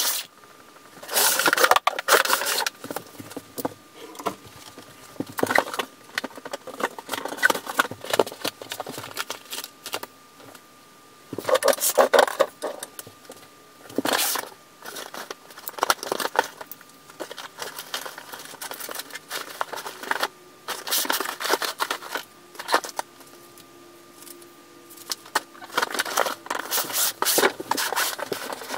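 Rummaging through a cardboard moving box and among things stored under a bed: irregular rustling, scraping and light knocks of cardboard and packed items being handled and shifted.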